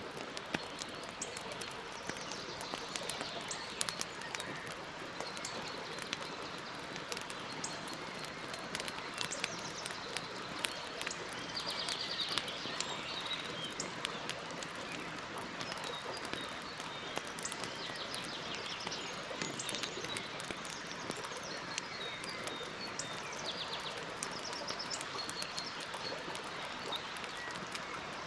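Campfire burning, a steady hiss with frequent sharp crackles and pops. Birds sing rapid trills in the background several times.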